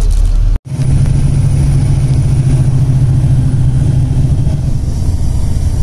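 Steady low engine drone and road rumble of a moving bus, with a sudden drop-out just over half a second in.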